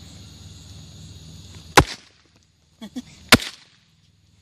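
Two sharp pops from small backyard fireworks, about a second and a half apart.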